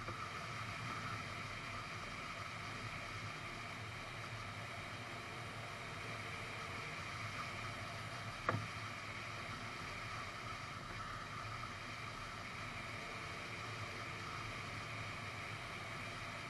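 Steady rush of airflow over a wing-mounted camera on a glider in flight, with a faint steady whistle in it. One sharp click about eight and a half seconds in.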